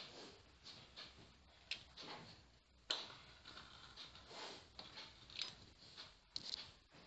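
Faint scraping of a pastry wheel rolled in repeated strokes through a sheet of dough on a granite countertop, with a light click of the wheel on the stone about three seconds in.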